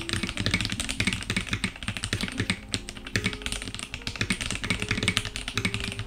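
Fast typing on an F97 Variable X mechanical keyboard with TTC Gold Pink linear switches: a dense, continuous patter of keystrokes.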